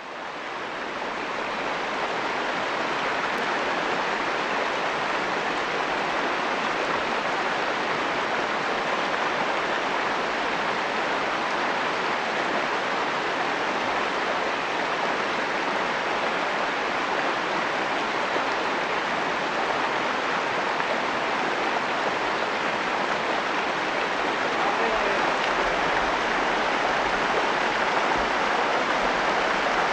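Mountain stream rushing over rocks and through shallow riffles, a steady hiss of running water that fades up over the first couple of seconds.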